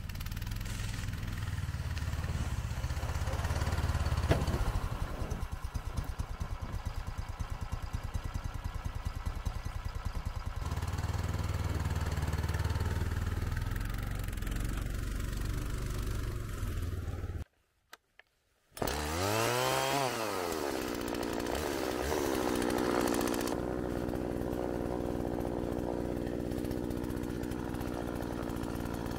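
Snowmobile engine running steadily. It breaks off for about a second past the middle, comes back with a rev that swings down and up in pitch, then settles into a steady run again.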